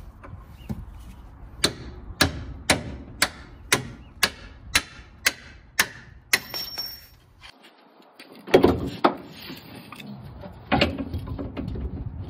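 A run of about nine sharp metal-on-metal knocks, evenly spaced at about two a second, each ringing briefly, followed a few seconds later by a few heavier, duller clunks: tools working on a car's suspension hardware.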